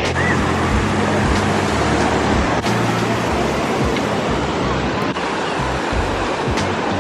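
Ocean surf washing steadily, with wind buffeting the microphone in an uneven low rumble.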